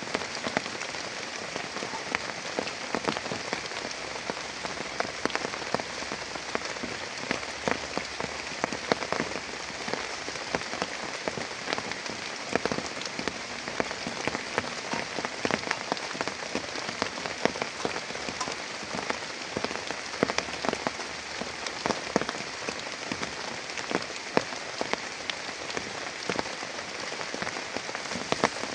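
Heavy rain falling steadily, with many individual drops striking a surface close by in sharp, irregular taps.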